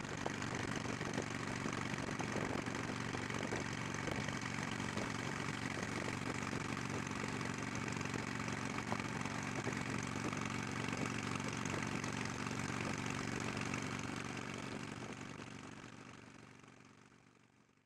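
Harley-Davidson Sportster 883's air-cooled V-twin engine running steadily at cruising speed on the road, with road and wind noise; the sound fades out near the end.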